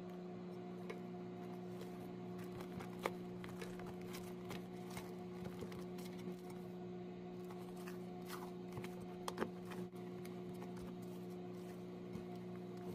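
Silicone spatula folding batter in a glass bowl, giving soft scrapes and small clicks against the glass, the sharpest about 3 s and 9.5 s in, over a steady low electrical hum.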